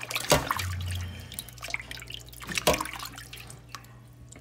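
Water sloshing and splashing in a stainless steel bowl as hands rub and turn raw chicken breasts in cold water and vinegar, with two louder splashes, one just after the start and one about two and a half seconds later.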